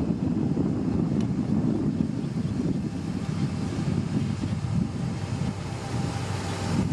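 Motor grader's heavy diesel engine running steadily under load, a continuous deep rumble.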